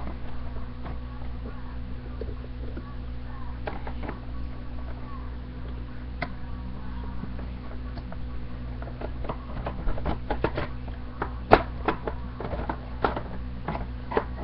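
Scissors snipping and clicking as they cut through plastic Nerf packaging, with scattered sharp clicks that grow busier over the second half and one loud snap about two-thirds of the way through. A steady electrical hum runs underneath.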